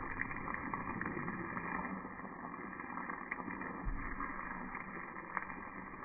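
Tomato sauce sizzling in a frying pan: a steady hiss with a few small pops.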